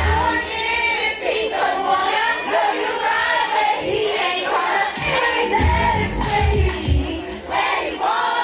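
Live R&B concert music: sung vocals over the band's bass and drums, with crowd voices mixed in.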